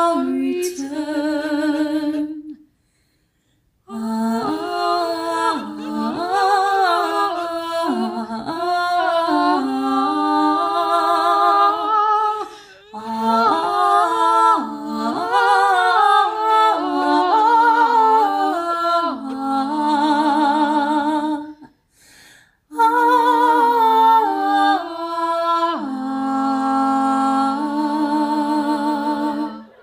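Slow singing that holds the last word, then goes on without words: voices humming a melody in harmony with vibrato, pausing briefly a few times.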